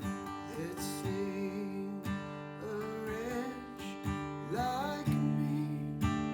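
Acoustic guitar strumming chords with a melody gliding between notes above it.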